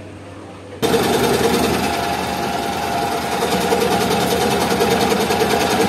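Chapakka scroll saw running, its vertical blade reciprocating rapidly as it cuts a round shape out of a wooden board: a steady, fast mechanical chatter that starts abruptly about a second in.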